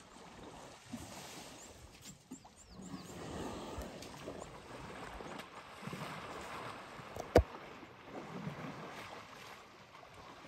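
Water sloshing and splashing as young elephants wade and splash in a waterhole, with a single sharp click about seven seconds in.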